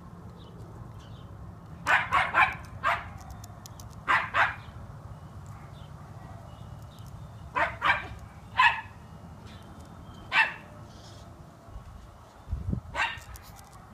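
Miniature schnauzer barking in short, sharp barks, about ten of them in small clusters with pauses between: excited barking at a squirrel up in a tree.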